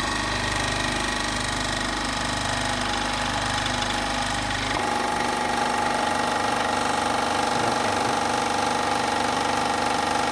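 Portable Japanese high-pressure air compressor running steadily after switching on, its motor and pump pumping up the tank. About five seconds in, the low hum drops away and a steadier, higher whine comes up. The unit builds pressure but leaks and does not reach full pressure.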